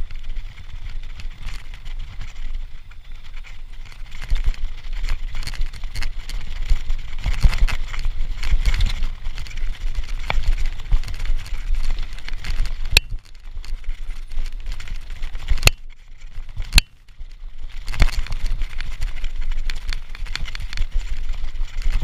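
Mountain bike ridden fast over a dirt trail, heard from a chest-mounted camera: a continuous clatter and rattle of the bike over the rough ground with a low rumble underneath. Past the middle the noise drops for a few seconds, broken by three sharp knocks.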